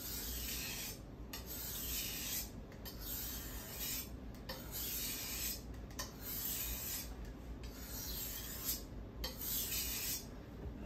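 Kitchen knife blade stroked back and forth on a wet 400-grit whetstone, a rasping hiss with each pass, about one stroke a second. The strokes are raising a burr along the second side of the edge.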